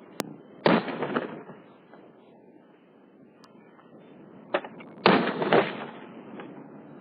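9mm pistol shots fired at a target: one shot a little under a second in, then a quick run of about three shots between four and a half and six seconds in, each a sharp crack.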